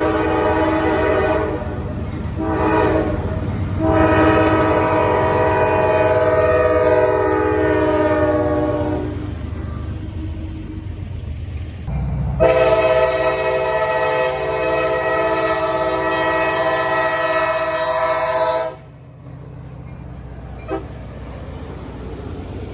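Locomotive air horn sounding a sequence of blasts over the low rumble of a passing train: two short blasts, a long blast that sinks slightly in pitch, then after a pause another long steady blast that cuts off near the end, leaving a quieter rumble.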